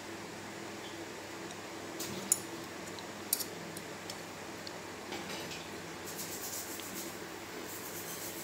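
Chopsticks clicking lightly against a ceramic bowl, two sharp clicks about a second apart a couple of seconds in, over a steady low hum. Near the end there is a soft, crackly rustle as chopped chives are sprinkled over the noodles.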